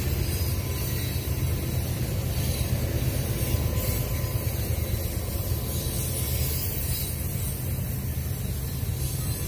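Freight train cars, mostly covered hoppers, rolling past: steel wheels running on the rails with a steady low noise.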